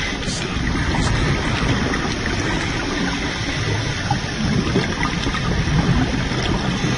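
Underwater scuba-diving sound: a steady low rush of water with bubbling.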